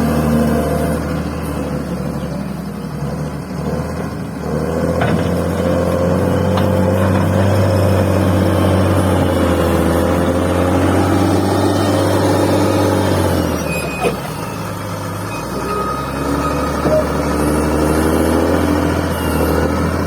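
Bulldozer's diesel engine running as it pushes and levels fill soil. The engine pulls harder from about five seconds in, eases off briefly around fourteen seconds, then works up again.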